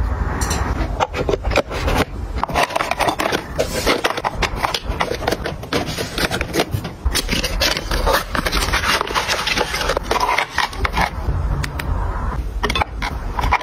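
Skincare packaging handled close to the microphone: cardboard boxes and plastic containers and ampoule strips scraping, rubbing and clicking against one another in a quick, irregular run of small knocks.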